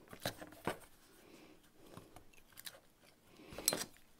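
Light clicks and taps of a steel ruler and small Styrodur foam strips being handled and lined up on a cutting mat, a few scattered ticks with one sharper, ringing metal click near the end.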